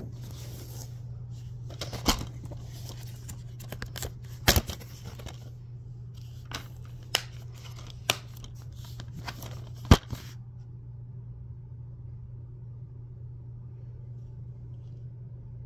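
Plastic DVD case being handled and turned in the hands: rustling with several sharp clicks and taps, the loudest about ten seconds in. The handling then stops, leaving a steady low hum.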